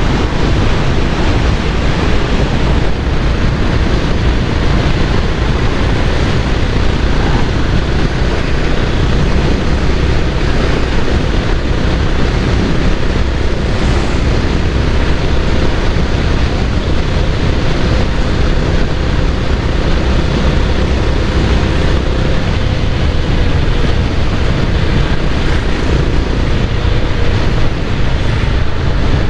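Motorcycle ride at speed: steady wind rush over the microphone with the bike running underneath.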